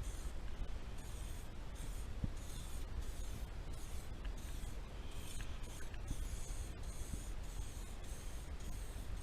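2K aerosol spray paint can spraying in many short bursts, each under a second, with a high hiss that starts and stops over a steady low rumble.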